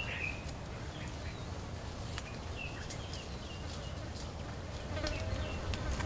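Quiet outdoor bush ambience: insects buzzing, with a few short, faint high chirps scattered through it.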